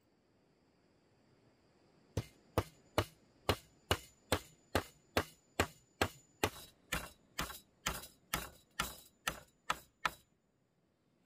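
A hand tool striking bamboo in a steady rhythm: about twenty sharp strikes, roughly two and a half a second, starting about two seconds in and stopping shortly before the end.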